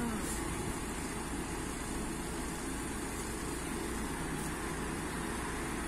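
Steady, low hum of vehicle engines and road traffic, with no distinct events.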